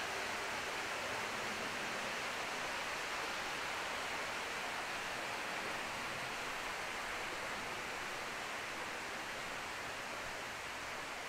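A steady rushing hiss that eases off slightly near the end.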